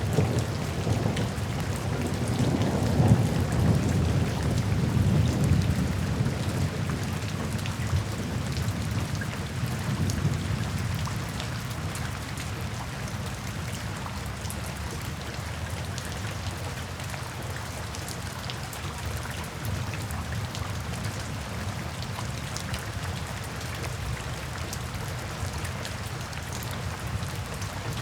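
Steady rain falling, with fine patter of drops throughout. A low roll of thunder rumbles under it for the first third and fades away about eleven seconds in, leaving the rain alone.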